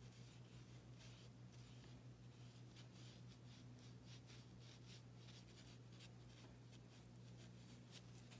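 Faint, irregular soft swishes of a watercolour brush stroking wet paint onto paper, over a steady low hum.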